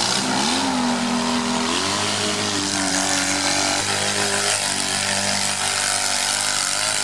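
Off-road vehicle's engine revving hard under load as it drives through mud. Its pitch rises about two seconds in, then holds high with small shifts.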